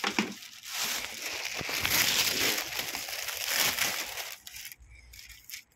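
Thin plastic carrier bag crinkling and rustling as it is handled and pulled open around a cardboard box, dying down about four and a half seconds in.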